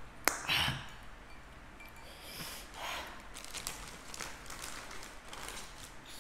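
A sharp click as a glass is set down on a table, then a breathy exhale. After that come quieter sniffs, breaths and small mouth sounds from someone eating very spicy noodles.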